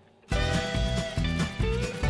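Background music with a steady beat, starting suddenly about a quarter of a second in after a brief near-silence.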